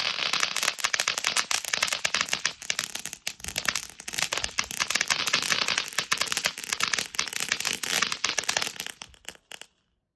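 Phantom Power Surge fountain firework spraying with a dense crackle: many rapid pops over a steady hiss. It dies down and stops about nine and a half seconds in as the fountain burns out.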